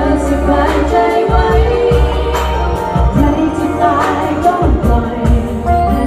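Pop song performed live through a PA: female vocals sung into handheld microphones over backing music with a steady beat.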